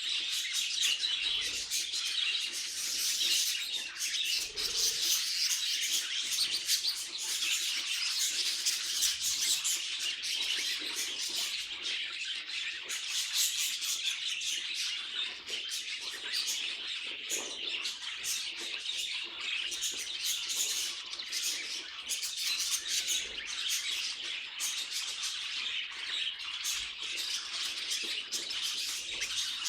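Budgerigars chattering and chirping continuously, a dense stream of high, rapid twittering warbles.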